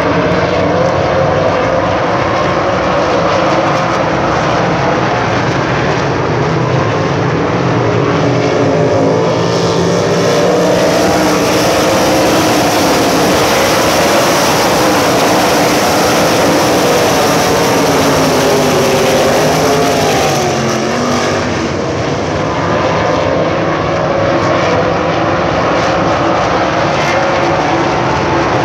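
A field of USAC Silver Crown race cars' engines running laps around a dirt oval, many engine notes overlapping and rising and falling as cars pass. The sound is fullest and brightest from about nine seconds in to about twenty-one seconds, as the pack comes closest.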